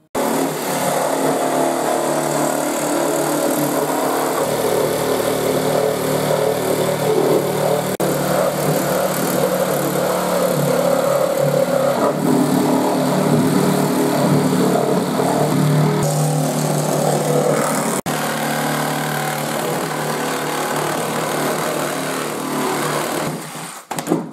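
Cordless reciprocating saw (sawzall) cutting lengthwise through a fibreglass car bonnet, the motor and blade running steadily with a few momentary breaks.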